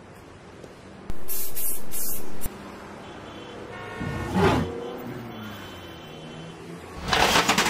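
Soft background film score with sustained tones. It is cut by a loud, even hiss about a second in that stops abruptly after about a second and a half, a short whoosh in the middle, and a loud noisy rush near the end.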